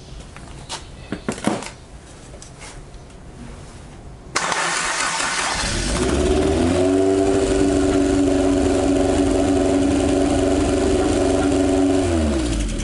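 Light metallic clicks and taps on the carburettor linkage. About four seconds in, the Toyota 4A-G engine on the stand is fired up through jumper leads: a sudden loud start, a rising pitch over a second or so, then a steady run for about six seconds before it winds down near the end.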